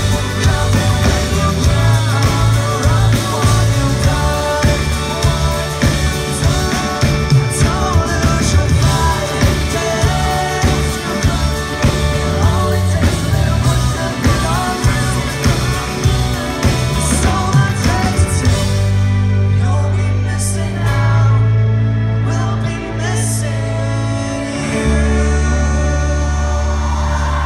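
A live pop-punk band plays with a sung lead vocal over acoustic and electric guitars, bass and drums. About two-thirds of the way through, the drumming thins out and the band holds long, sustained chords as the song winds down.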